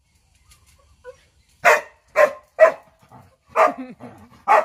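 A dog barking five times in short, sharp barks, starting a little over a second and a half in.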